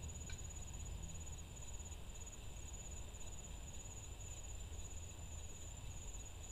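A steady, high-pitched insect trill, with a low rumble underneath.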